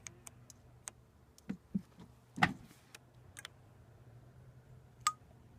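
Scattered light clicks and taps, with two soft thumps and one louder knock about two and a half seconds in.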